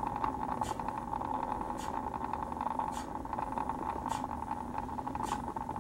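Small motorized display turntable running with a steady hum, with a faint tick a little more than once a second.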